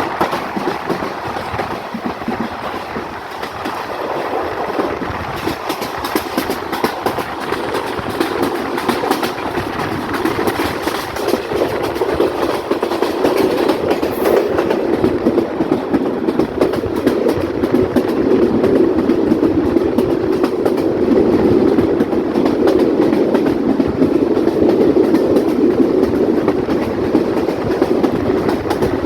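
Passenger train running along the line, its wheels clattering steadily over the rail joints above a continuous running rumble. The sound builds somewhat louder through the second half.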